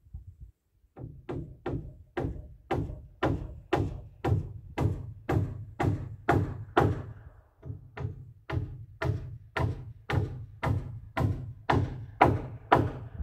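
A hammer striking wood framing in a steady run of sharp knocks, about two blows a second, starting about a second in and going on nearly to the end.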